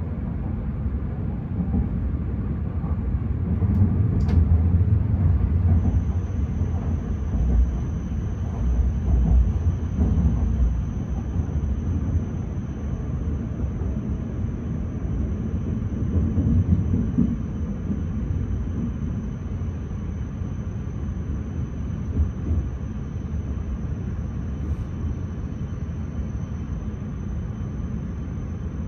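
Cabin sound of a W7 series Shinkansen train running: a low rumble from the running gear that eases off as the train slows toward the station. A thin, steady high-pitched whine joins in about six seconds in.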